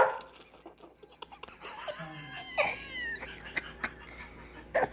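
A young child's voice: a few short, high-pitched squeals that fall in pitch about halfway through, between quieter moments.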